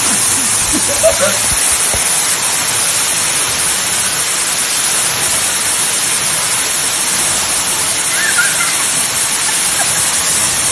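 Waterfall rushing as a loud, steady, even hiss, with faint brief voices about a second in and again near the end.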